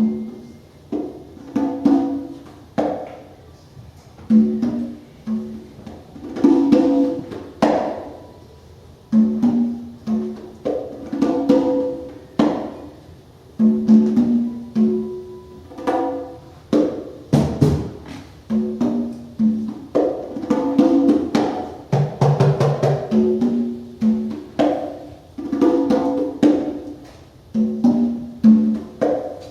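Live free-improvised music: congas played in quick struck patterns, mixed with short plucked notes that ring and die away.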